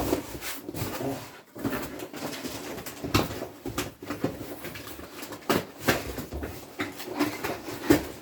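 Box packaging being handled: an irregular run of rustles, scrapes and knocks as a large potted plant is unpacked.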